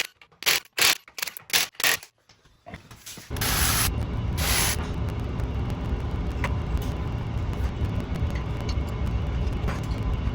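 A few clicks and knocks, then about three seconds in a Chevy Silverado SS's 6.0-litre V8 starts and settles into a steady rumble through long-tube headers. Two short hissy bursts come just after it starts. The engine has an exhaust leak at the driver's-side header flange, where a composite gasket has blown out.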